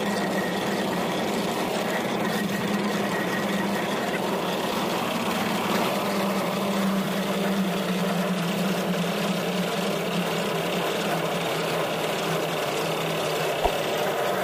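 Drum concrete mixer running steadily while it mixes and tips out a batch of wet concrete, a continuous machine drone. A single sharp knock near the end.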